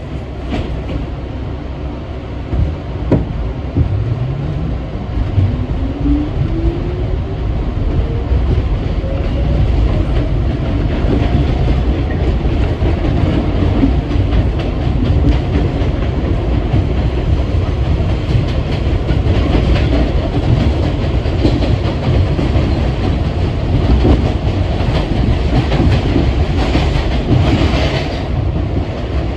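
R62A subway car heard from inside as it pulls away. The motors' whine rises in pitch from about four seconds in until about eleven, then the car runs on at speed with a steady rumble and knocking of wheels on the rails.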